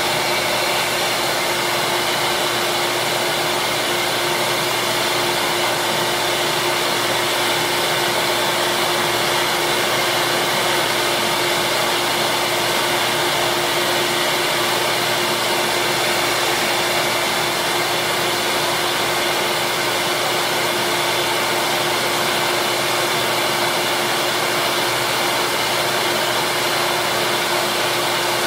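Small bench-top sander running steadily: an electric motor's constant hum and whine over an even hiss, while a small plastic shoe slider held on a nail is shaped against the sandpaper.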